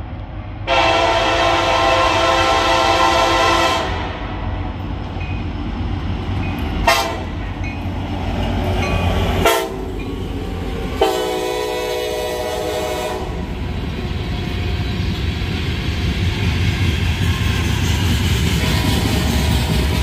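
CSX SD70 freight locomotive's air horn sounding several notes at once. It gives a long blast starting about a second in, a short toot about seven seconds in, and a second long blast about eleven seconds in. A sharp crack comes about halfway through, then the train's steady rumble and rolling wheels on the rails build as the locomotives and hopper cars pass.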